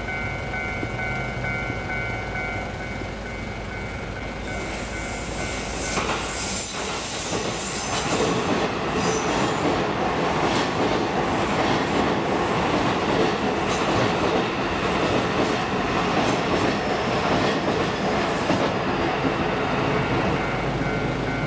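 Japanese level-crossing bell ringing steadily. About five seconds in, a JR Ome Line E233-series electric commuter train passes, with a high wheel squeal and a rapid run of clacks over the rail joints. The train drowns the bell until it is heard again near the end.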